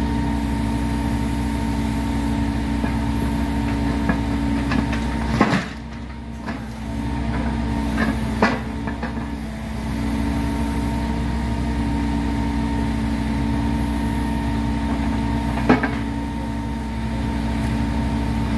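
Heavy engine of track equipment running steadily at idle. A sharp knock comes about five seconds in, after which the level drops for a few seconds, and two lighter knocks follow later.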